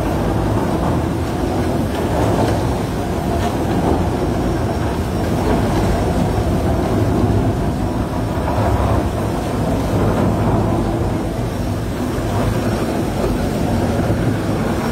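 Tunnel boring machine's cutterhead turning and cutting through the last of the rock face at breakthrough: a steady, loud, low mechanical rumble.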